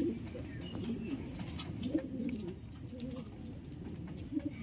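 Domestic pigeons cooing: low, repeated coos.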